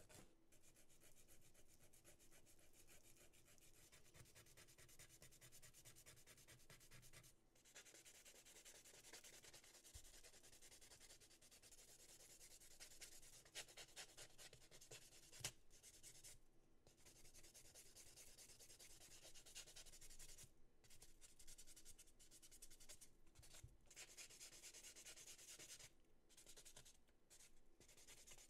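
A nail file and then a white buffer block rubbing back and forth over soft-gel (Gel-X style) nail tip extensions, smoothing the surface. It is a faint, fine, scratchy rasp with short pauses between passes.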